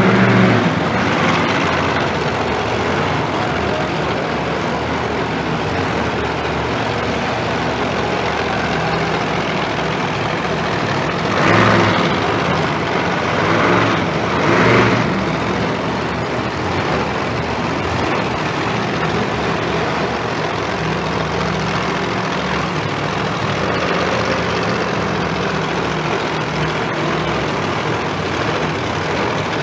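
Monster truck engines running loudly and steadily at idle, with a few brief louder swells about halfway through.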